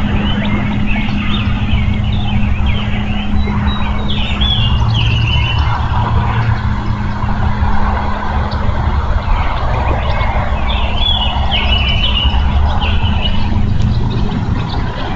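Songbirds singing short phrases of repeated chirps, in several bursts, over a steady low rumble and a constant low hum from an outdoor camera microphone.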